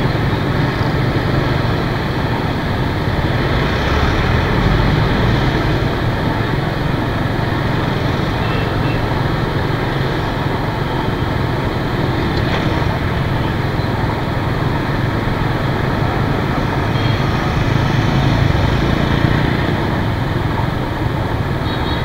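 Steady traffic noise heard from a moving scooter: its own engine and tyres mixed with the running of the many motorbikes around it, growing a little louder for a while twice.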